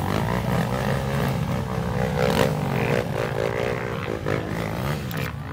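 Several off-road dirt bike engines running together, idling and being blipped, with pitches rising and falling as the riders work the throttles.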